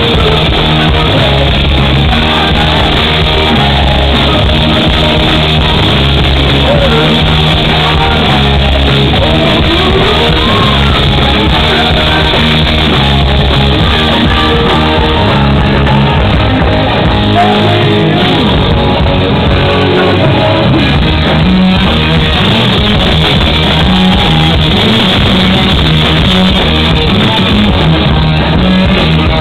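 Rock band playing live: electric guitar, drums and a male lead singer, loud.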